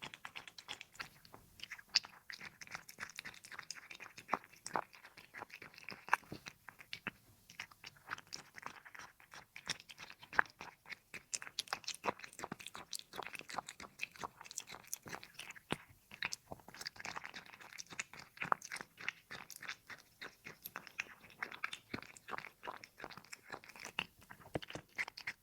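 A cat chewing and crunching its food close to the microphone: dense, irregular crunchy clicks and smacks of eating.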